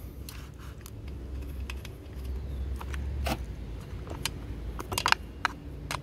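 Light metallic clicks and taps as steel bar nuts are fitted by hand onto a chainsaw's bar studs, with a quick run of clicks about five seconds in.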